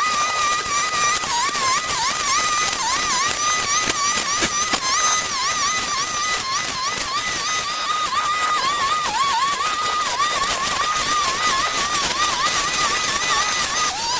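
A small motor whining steadily at a high pitch, its pitch dipping briefly again and again as if under load, with crackling throughout.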